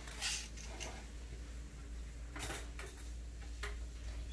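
A few brief, light clinks and scrapes of small parts being handled, over a low steady hum.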